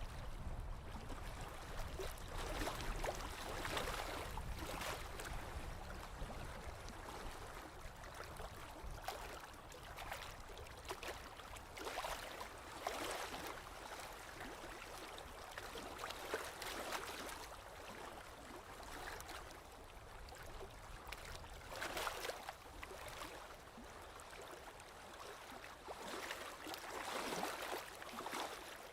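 Small waves lapping on a lakeshore: soft splashes every few seconds over a steady wash of water.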